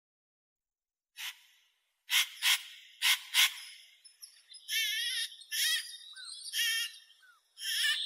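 Spotted nutcracker calling: a short call about a second in, then four loud harsh calls in quick succession, then a run of longer, wavering calls about once a second.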